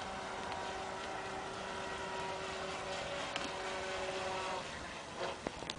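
RC speedboat's 775 brushed electric motor and stock propeller running at speed, a steady whine that cuts off about four and a half seconds in. A few light knocks follow near the end.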